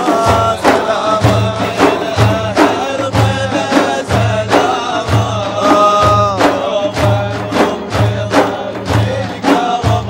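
Men singing an Arabic devotional madih chant over large frame drums (daf) beaten in a steady rhythm, with one long held note about six seconds in that falls away at its end.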